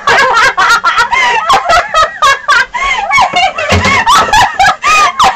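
Young women laughing loudly in quick, choppy bursts, mixed with excited talk.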